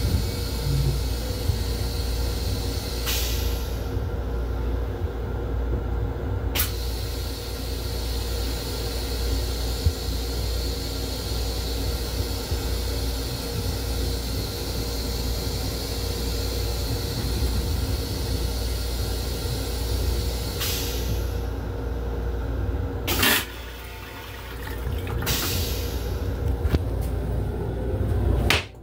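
Steady rumble of a Metro-North M7 railcar running, heard inside its restroom. About 23 seconds in, the restroom toilet flushes with a short, sharp burst, and near the end the toilet seat is lowered.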